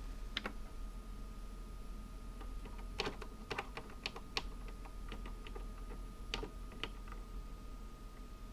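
Keys and buttons on the Aloka SSD-500 ultrasound scanner's control panel being pressed: about a dozen scattered clicks between about two and seven seconds in, over a faint steady hum and a thin steady tone.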